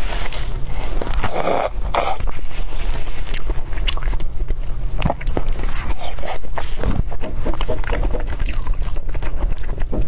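Close-miked eating: biting and chewing dumplings in a saucy, spicy broth, with many short wet smacks and clicks.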